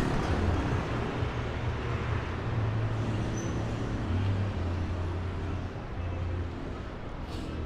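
Busy city street traffic: steady road-vehicle noise with a low engine hum, easing off slightly near the end.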